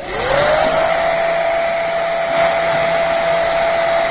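Hair dryer switched on: its motor whine rises over about half a second to a steady pitch, then it blows steadily with an even rush of air. It is blowing on the ice built up in a refrigerator to melt it off.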